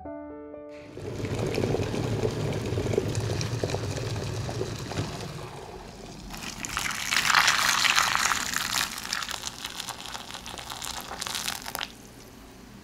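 Water pouring into a glass bowl of raw chestnuts to soak them. It starts as a lower, rougher rush, becomes a louder, brighter stream about halfway through, and cuts off suddenly just before the end. A few piano notes fade out at the very start.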